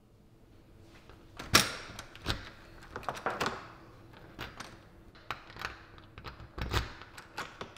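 A run of irregular clicks and thuds from a front door's deadbolt, knob latch and door as someone comes in. The loudest thuds come about a second and a half in and near the end.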